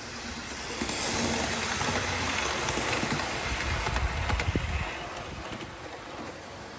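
00 gauge HST model train running past on the track: a rumble and rattle of motor and wheels that swells about a second in, is loudest just before the middle-to-late part with a few sharp clicks, then fades.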